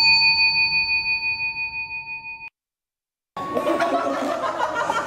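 A bell-like chime sound effect: one strike ringing with several clear tones, fading for about two and a half seconds, then cut off abruptly into a moment of dead silence before other sound resumes.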